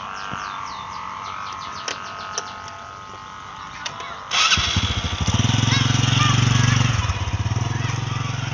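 Sawangan kite hummers (bamboo resonators on flying kites) droning in the wind. A steady higher whine comes first. About four seconds in, a much louder, low buzzing drone sets in suddenly and wavers in strength.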